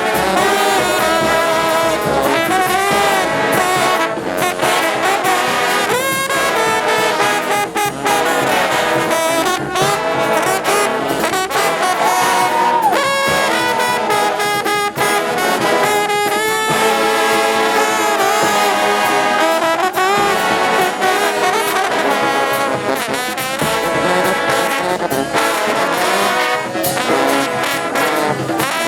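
Mummers brass band playing a tune, trombones and trumpets carrying the melody over steady percussion.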